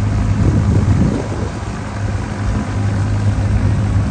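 Engine idling steadily with a low, even hum.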